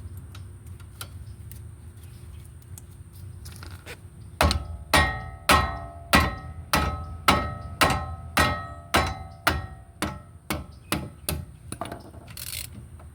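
Hammer striking metal about fifteen times, roughly two blows a second, each blow with a short metallic ring, during front brake caliper removal.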